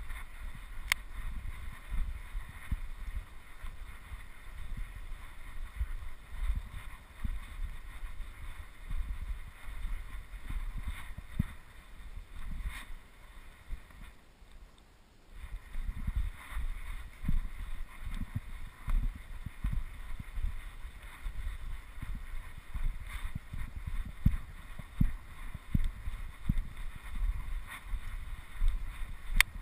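Wind rumbling on the camera microphone, with uneven low thumps. It eases briefly about halfway through.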